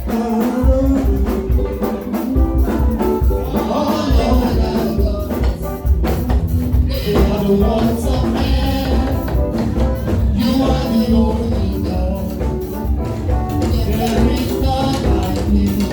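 Church choir singing a worship song over a band with strong bass and steady percussion.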